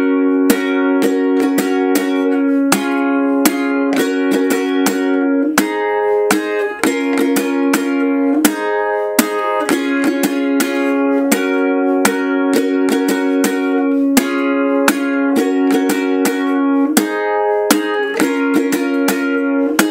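Ukulele with a capo on the first fret, strummed in a steady down-up pattern through the chord progression F, C to F, G to A minor, G to C, played twice at a slow tempo.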